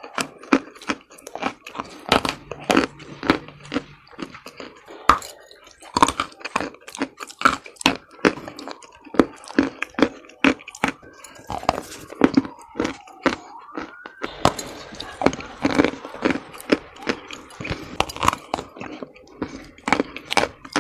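Close-up crunching of Monastyrsky chalk chunks coated in black paste, bitten and chewed. There are many sharp crunches at irregular intervals.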